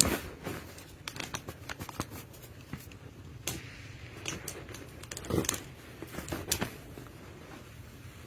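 Irregular taps, clicks and rustling, with a sharp knock at the start and louder thumps about five and a half and six and a half seconds in.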